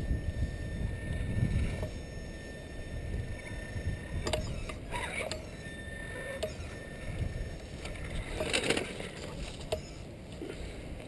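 Axial Wraith RC rock crawler's brushed electric motor and gears running as it crawls over rock, with a few sharp clicks and knocks of tyres and chassis on the stone, a cluster about halfway through and another near the end. A low wind rumble on the microphone sits underneath.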